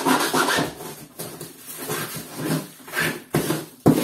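Small hand saw (segueta) drawn back and forth over a cardboard parcel in repeated strokes, about two a second in the second half, the blade not cutting through.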